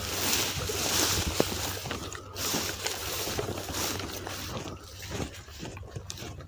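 Rustling and sloshing as someone moves through wet reeds at the water's edge, over a steady low rumble of wind on the microphone.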